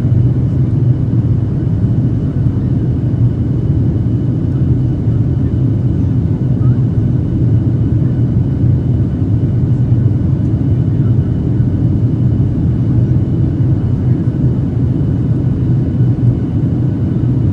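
Steady cabin roar of a Boeing 737-800's two CFM56-7B engines and the rushing airflow, heard from a window seat over the wing while the airliner climbs out after takeoff. A faint steady high whine runs beneath the roar.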